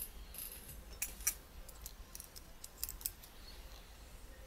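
Light, irregular clicks and scrapes of a Nikon Coolpix S02's small plastic and metal parts being handled and pried apart by hand, most of them in the first three seconds.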